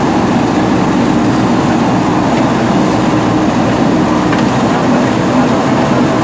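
Diesel engine of a JCB 3DX backhoe loader running steadily under work, with a constant hum over a dense mechanical rumble.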